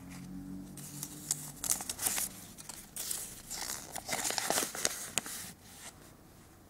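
Folded paper instruction leaflet from a Kinder Surprise egg being unfolded by hand, crinkling in a quick run of small crackles that stops about a second before the end.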